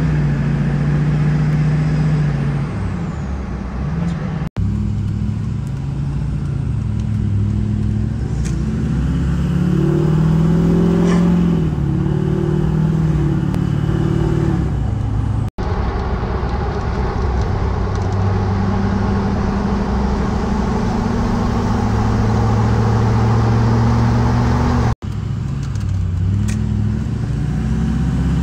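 LLY Duramax 6.6-litre V8 turbo-diesel with a straight 5-inch exhaust, heard from inside the cab while driving. The engine note climbs as the truck accelerates and drops back several times, and the audio cuts out briefly three times.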